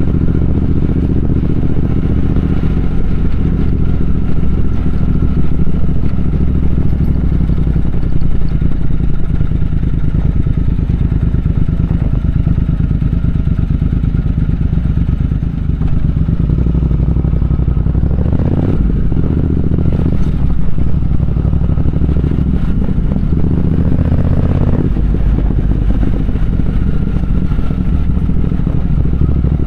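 Triumph Speed Twin 1200's parallel-twin engine running under way, steady for most of the stretch, with a few brief rises in engine sound about two-thirds of the way in.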